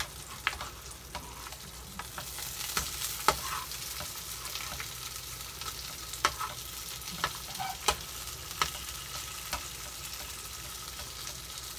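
Salted mackerel fillets sizzling in a frying pan. A slotted spatula scrapes and taps against the pan a dozen or so times as the fillets are worked, and the sizzle grows louder about two seconds in.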